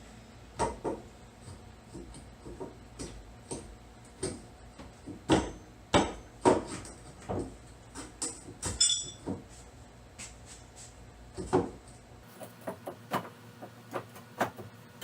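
Irregular knocks and clunks of metal parts and hand tools as the rear transverse leaf spring is worked out of a C6 Corvette's rear suspension. The loudest knocks come in a cluster about halfway through, with one brief ringing metallic clink just after.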